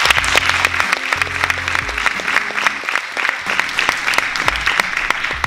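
Audience applauding, with background music underneath.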